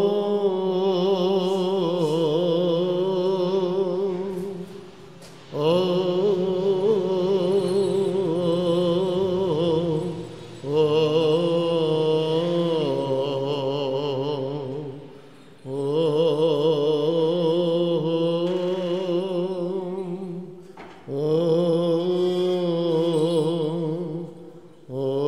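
Byzantine chant of a Greek Orthodox service, sung by a male voice in long held phrases with wavering pitch, breaking for a breath about every five seconds.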